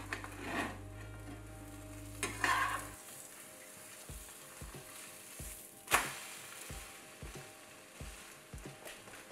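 Egg-dipped bread slices and egg mixture sizzling as they fry in a non-stick frying pan, with a metal slotted spatula scraping under them and knocking against the pan; one sharp clack about six seconds in. Faint background music with a steady beat underneath.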